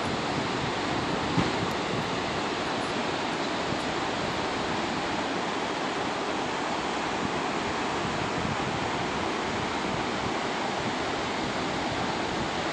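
Steady rushing of Victoria Falls' water pouring into the gorge, an even unbroken roar with no rhythm. A single brief tap sounds about a second and a half in.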